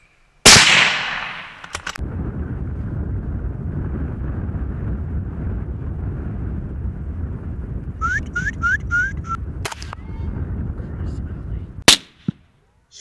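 Two rifle shots, one about half a second in with a long fading tail, the other near the end as the bullet strikes a coyote. Between them a steady low rumble, with four short rising chirps about eight seconds in.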